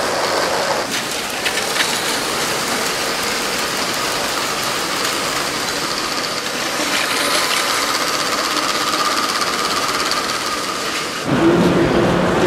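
LEGO train running on plastic track: a steady electric motor whir with a faint whine, and a couple of clicks from the wheels about two seconds in.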